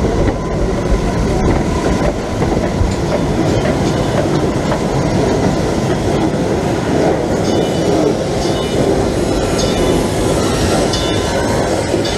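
Log flume ride running: a steady loud rattling rumble with scattered sharp clacks, like rolling rail cars.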